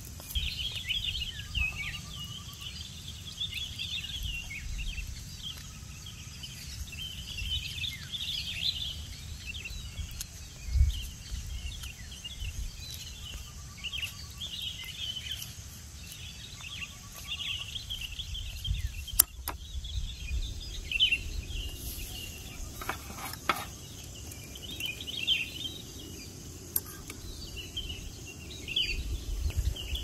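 Outdoor ambience of many small birds chirping and twittering in irregular bursts, with wind rumbling on the microphone. A few sharp clicks and knocks come from the mess tin and utensils being handled.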